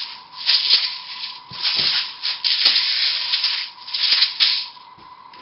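Plastic bottles of airsoft BBs being lifted out of a cardboard box: the BBs shift and rattle inside the bottles while cardboard and packing paper rub and rustle, in about four bursts.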